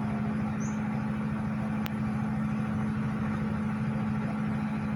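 Steady low machine hum with a constant tone, like a motor running, and one faint click about two seconds in.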